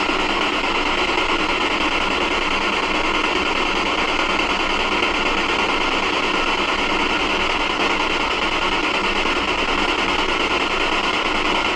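Steady radio static hiss from a handheld spirit box sweeping through radio stations while the investigators wait for a voice to answer.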